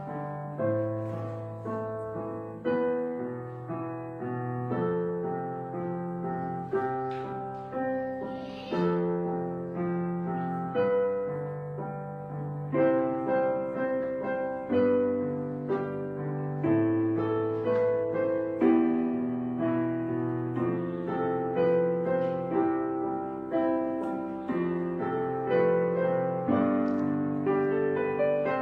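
Background piano music: a steady run of struck notes, each fading away, over lower bass notes.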